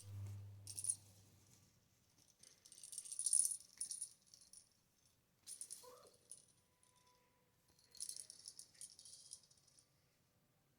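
Christmas tree branches and ornaments rattling and jingling in four separate bursts as a cat plays in the tree, the loudest burst about three seconds in. About six seconds in there is a brief rising chirp from the cat.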